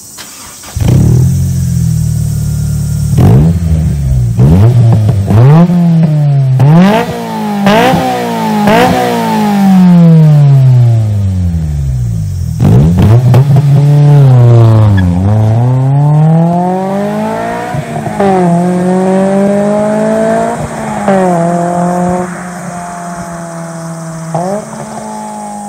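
Honda S2000's four-cylinder engine through a J's Racing FX-PRO 70RS full-titanium exhaust. It idles, then is revved repeatedly in quick blips and longer rising-and-falling sweeps. It then accelerates away hard, the revs climbing in steps with sudden drops at gear changes and the sound fading toward the end.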